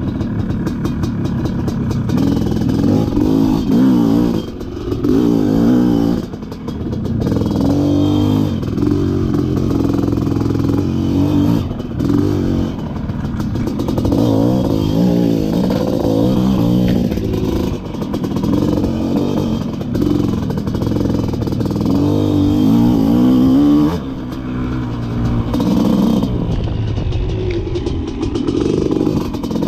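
Dirt bike engine being ridden on the throttle, its pitch rising and falling again and again as the revs go up and back off, with short drops in loudness every few seconds.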